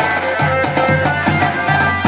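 Garhwali folk music: dhol drumming in a fast, steady beat, with a held melody line above it.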